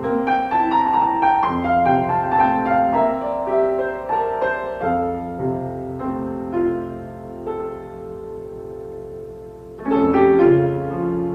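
Background piano music: a slow melody of held notes over chords, with a louder phrase starting near the end.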